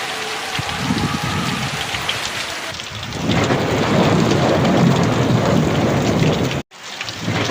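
Heavy rain falling steadily with thunder rumbling; a louder rumble of thunder builds about three seconds in. Near the end the sound cuts out abruptly for a moment, then resumes.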